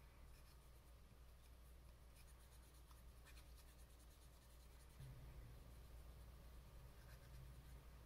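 Faint scratchy rubbing of a cotton swab scrubbed around the inside of a Waterman's 55 fountain pen's hard rubber cap: a run of light scratching strokes in the first few seconds and again near the end.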